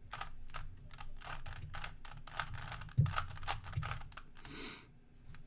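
Rubik's cube being turned quickly by hand: a fast, irregular run of plastic clicks and clacks as the layers snap round, with one heavier knock about three seconds in.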